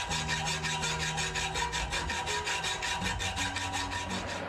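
Rusty steel of an old Bahco adjustable wrench being rasped by hand, in fast, even strokes at about eight a second; it cuts off suddenly at the end.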